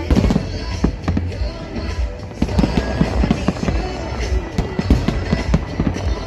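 Aerial fireworks exploding in a rapid string of bangs, thickening about two seconds in, with music playing alongside.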